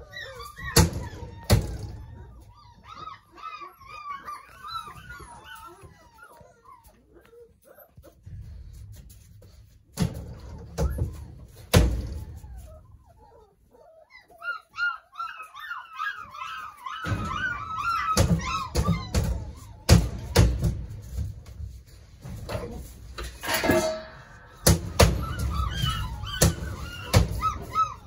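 Young Doberman puppies whining and squealing in many short, high-pitched wavering cries. Scattered knocks and thuds sound throughout, and the cries ease off for a few seconds near the middle.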